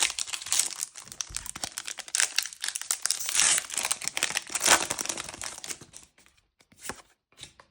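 Foil wrapper of a trading-card booster pack being torn open and crinkled for about six seconds, then a few faint taps.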